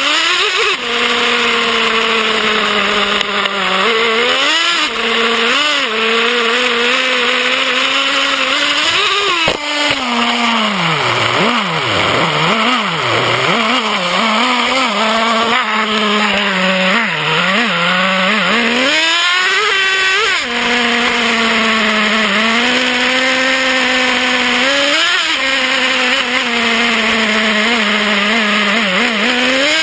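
Traxxas Revo's small two-stroke nitro engine running, heard from on board the truck. Its pitch rises and falls with the throttle, with several deep drops and climbs partway through.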